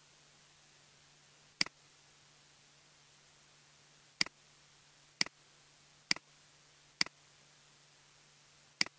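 Computer mouse button clicking six times at uneven intervals, each click a sharp press followed at once by a softer release. Under the clicks is a faint steady hiss with a low hum.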